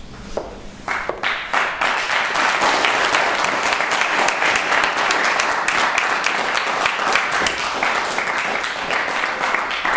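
Applause from the audience and debaters: a few scattered claps at first, filling out into steady clapping about a second in.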